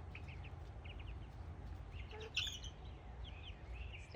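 Baby chicks peeping, many short high chirps in quick succession, with one louder chirp about two and a half seconds in, over a steady low rumble.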